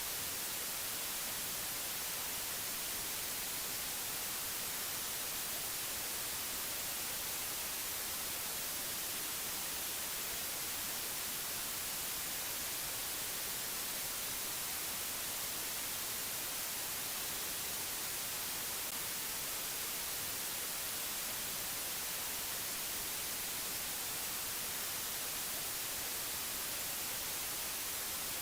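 Steady white-noise hiss, even and unchanging, brighter in the treble.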